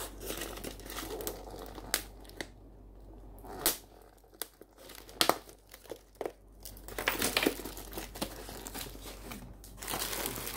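Cardboard box being opened by hand: packing tape and cardboard flaps being torn and pulled, with several sharp clicks along the way. From about two-thirds of the way in, a denser crinkling of the packaging as the contents are reached.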